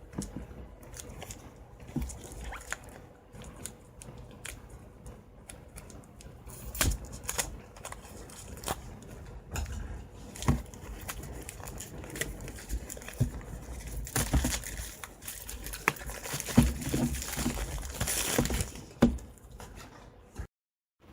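Card packaging being handled and opened by hand: scattered clicks and taps, then a longer stretch of crinkling and tearing wrapper about two-thirds of the way through. A short drop to silence just before the end.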